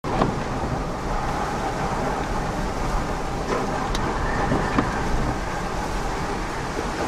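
Hurricane-force wind and rain beating on a vehicle, heard from inside it: a steady rushing noise with a few sharp clicks from the rain and gusts on the body and glass.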